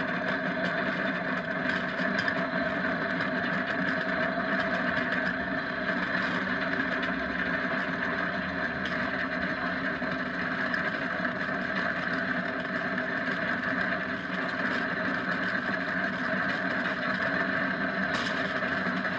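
Steady rolling noise of a gravity-powered downhill kart at speed, heard from on board: an even hum and roar that holds unchanged the whole time.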